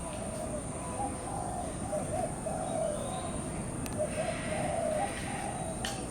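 Birds calling: a steady run of short, low, wavering cooing notes repeating one after another, over a faint steady high-pitched whine.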